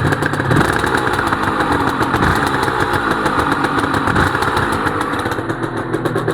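Honda NSR250R-SP MC18's two-stroke V-twin running through JHA expansion-chamber pipes just after its first start, revs rising and falling. The pipes sound nice.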